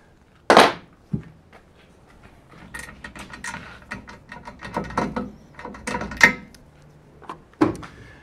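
Metal tool and hardware handled at a van's rear door: a sharp clank about half a second in, a run of small clicks and rattles through the middle, and another clank near the end, as the open-ended wrench is taken out from behind the door panel.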